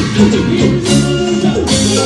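Live Latin band music: guitar over bass and percussion, with a steady beat.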